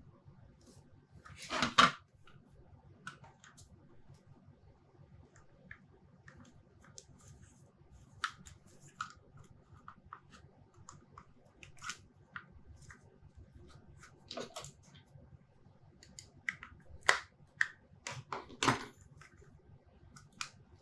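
Handling of small plastic vacuum parts and cable connectors: scattered light clicks and taps, a louder clatter about two seconds in and a cluster of clicks near the end.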